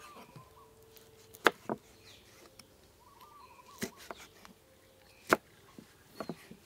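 Cleaver blade striking a wooden chopping board while cutting chili and pickled bamboo shoot: three sharp chops well apart, then a couple of lighter cuts near the end. Birds chirp faintly in between.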